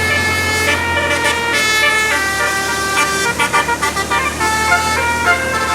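Bus telolet basuri horn, a multi-trumpet musical air horn, playing a melody of quick, changing notes, over a steady low hum.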